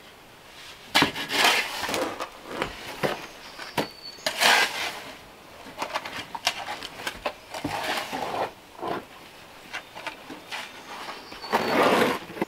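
A shovel scraping and pushing through a gritty sand-and-cement mix in a plastic mortar tub, in irregular strokes a few seconds apart, with small knocks of the blade against the tub.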